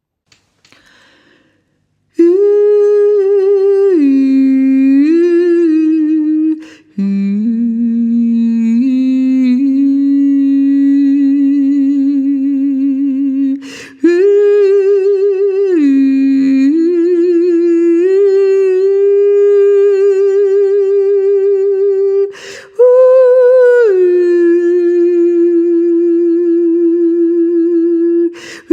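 A woman's wordless voice, sung a cappella in long held notes with a slow vibrato, stepping and gliding between a few pitches. It begins about two seconds in, with a quick breath between phrases every seven to nine seconds.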